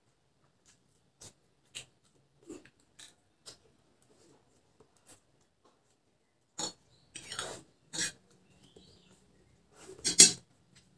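Close-up eating of instant noodles with a fork: short mouth clicks, smacks and fork taps on the plate, then louder noodle slurps from about two-thirds of the way in, the loudest shortly before the end.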